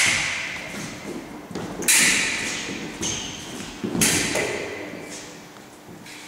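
Steel foil blades striking each other: three sharp, metallic clashes about two seconds apart, each ringing and echoing in a large hall, with fainter taps and thuds between them.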